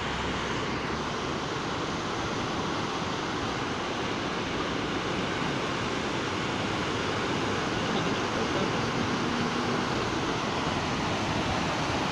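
Steady rushing of fast brown floodwater churning through a concrete river channel.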